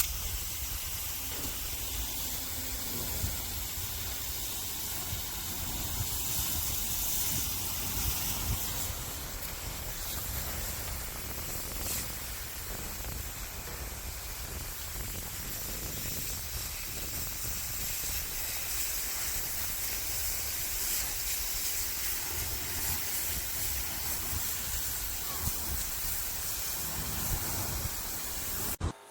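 Ontel Turbo Jet HydroX5 Pro cordless pressure washer spraying a steady jet of water: a continuous hiss over a low rumble that cuts off abruptly at the very end.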